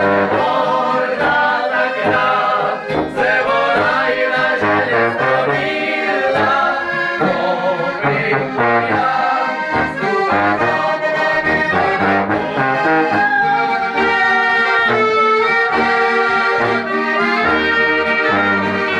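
A small live band playing a folk tune on accordion, a brass horn and guitar, with the accordion and horn out in front.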